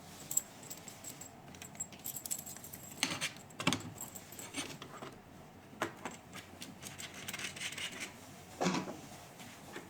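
Small clicks and rattles of a handpiece and its cable being handled and plugged into the connector of a cavitation machine, with a few sharper clicks spread through.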